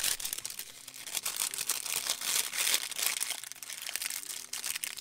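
A thin, translucent plastic bag crinkling in the hands as it is handled and opened: a dense run of crackles, loudest about halfway through.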